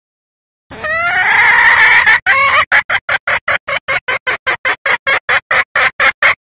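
Red junglefowl hen calling: a drawn-out rising cackle, then a fast run of short clucks, about five a second, that cuts off suddenly. A recorded hen call of the kind used to lure junglefowl cocks.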